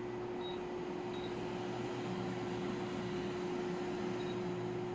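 Cherry ionizer air purifier's fan running steadily, a constant airflow rush with a steady electrical hum.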